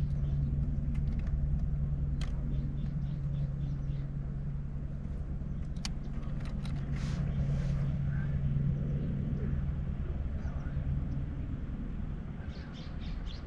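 A steady low motor hum that fades near the end, with scattered light clicks and knocks over it.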